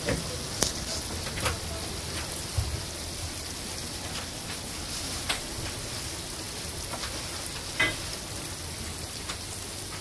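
Steady hiss of heavy rain falling on the lake, with a few sharp taps scattered through it.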